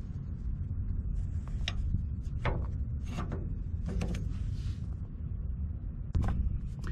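A handful of irregular metal clicks and clacks as a truck's pintle hook safety latch is worked by hand, over a steady low background rumble.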